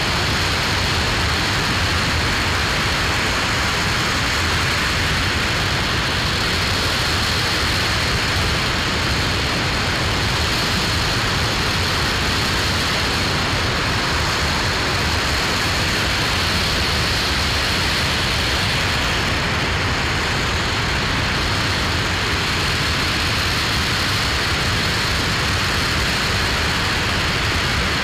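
Aerojet Rocketdyne RS-25 liquid-hydrogen rocket engine firing steadily during a hot-fire test, a continuous even rushing noise that holds one level throughout.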